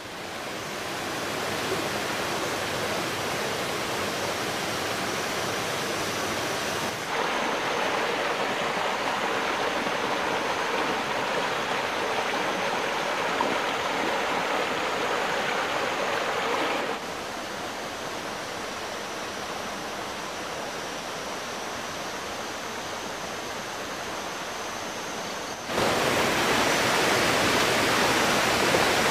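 Waterfall water rushing in a steady roar-like hiss, with no rhythm or pitch. The level jumps up abruptly about a quarter of the way in, drops back a little past the middle, and comes up loudest near the end.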